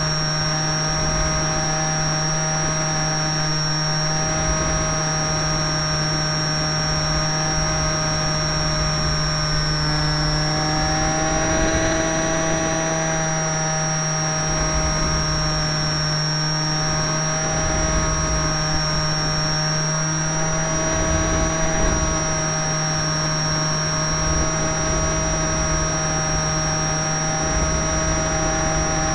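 Model canard airplane's motor running steadily in flight, recorded on board, with wind buffeting the microphone. Its whine rises in pitch about a third of the way in, then eases back a little, and a steady high whistle sits above it.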